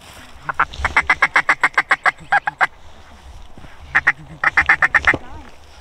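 Duck quacks in fast runs of about seven a second: a long string lasting about two seconds, then a shorter string about four seconds in.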